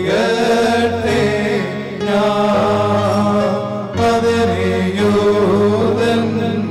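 Choir singing a slow Malankara Orthodox liturgical chant in Malayalam, with a steady low drone held under the melody.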